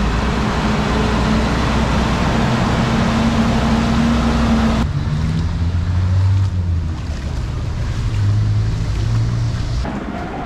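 Rain falling with a motor engine running, a steady low hum under the hiss. About five seconds in the sound changes abruptly: the rain grows quieter and the engine hum shifts in pitch.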